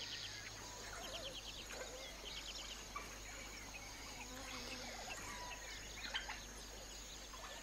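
Dawn chorus of small birds: many short chirps and trills from several birds at once, over a faint steady high tone.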